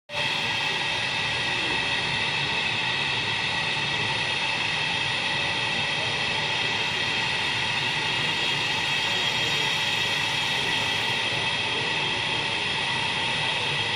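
Milling spindle on a KUKA industrial robot arm running steadily during 3D milling, a steady high whine with several tones over a rushing noise.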